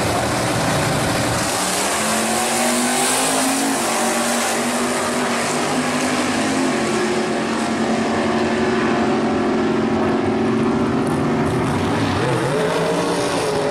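Two G-body drag cars, a white Chevrolet Monte Carlo and a maroon Oldsmobile Cutlass, launching and running at full throttle down a drag strip. The loud engine note climbs and drops several times as they shift.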